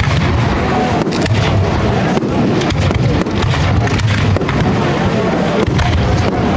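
Spanish-style fireworks display firing without a break: a dense barrage of sharp bangs, many a second, over a steady loud rushing noise from fountains and rising comets.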